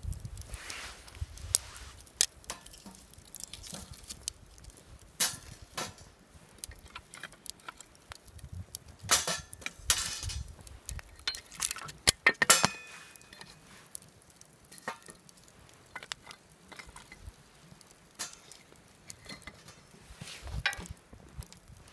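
Scattered clinks and knocks of metal cookware and utensils, loudest in two clusters near the middle, one strike leaving a brief metallic ring.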